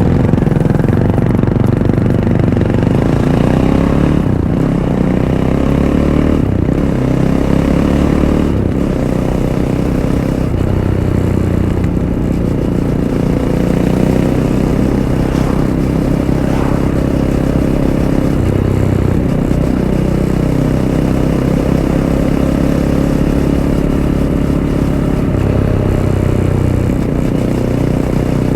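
Fantic Caballero 500's single-cylinder four-stroke engine through its stock Arrow exhaust, under way off-road. It climbs in pitch and drops back as the throttle is worked and gears change several times in the first ten seconds, then runs more evenly with a few more rises and falls.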